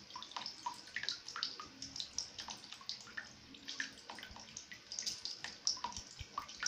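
Small irregular splashes and drips of water, a cat pawing and playing in it.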